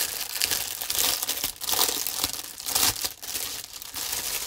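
Thin plastic bag holding model-kit sprues crinkling and rustling in the hands as it is worked open.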